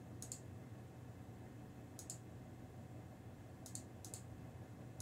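Faint computer mouse clicks: one just after the start, one about two seconds in, and two close together near the end.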